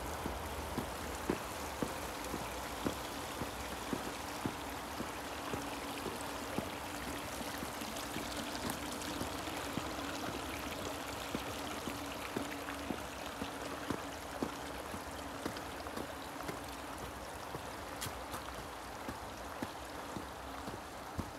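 Footsteps of a person walking on a paved road, about one step every three-quarters of a second, over a steady rushing hiss.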